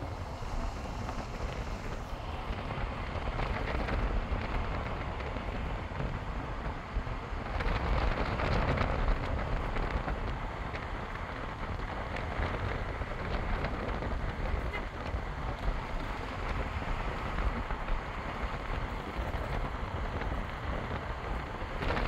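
Steady rumble and rushing wind noise from a moving vehicle, with wind hitting the microphone; it swells for a couple of seconds about eight seconds in.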